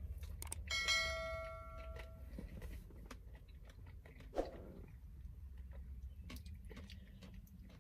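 A bell-like chime sound effect rings about a second in and fades out over a second or so. Under it are soft crunching and chewing sounds from chocolate-coated ice cream bars being eaten, and a low steady hum.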